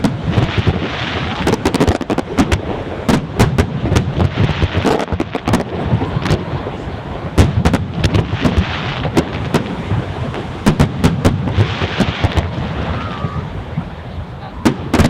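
Fireworks going off in a dense barrage: many sharp, irregular bangs and crackles over a continuous rumble.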